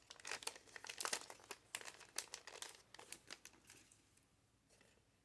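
Pokémon trading cards and pack wrapping being handled, crinkling in quick crisp rustles that die away about three and a half seconds in.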